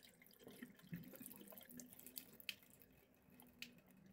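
Tap water running faintly into a sink basin while rice is being rinsed, with scattered small splashes and drips.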